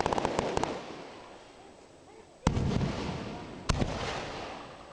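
Fireworks shells bursting overhead at close range: a quick run of sharp crackling bangs at the start, then two big booms a little over a second apart past the middle, each rumbling and dying away.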